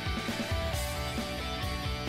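Background music with guitar, playing softly.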